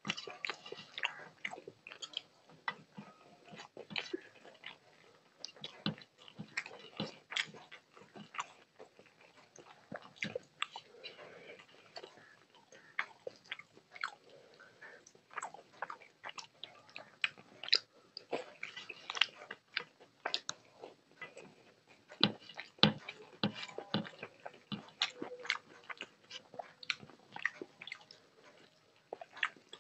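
Close-miked chewing of rice and fish curry eaten by hand, with many quick wet clicks and smacks at an irregular pace, and the soft squish of fingers working rice and gravy on a steel plate.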